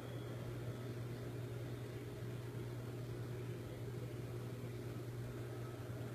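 Steady low hum under a faint even hiss, with no distinct events: background room tone.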